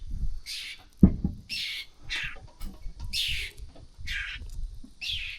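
Birds giving a run of short, harsh calls, about six in a row, with a low thump about a second in.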